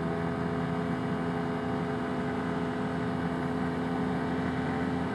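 Arctic Cat Wildcat Trail UTV engine running at a steady trail-cruising speed, a constant drone with an even pitch.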